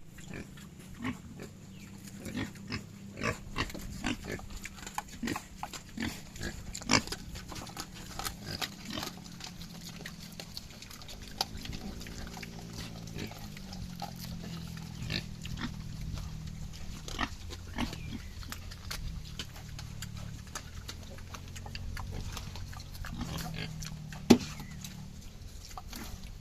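Native pig eating bananas: crunchy chewing and smacking in many short, irregular clicks, over low grunting. One louder snap near the end.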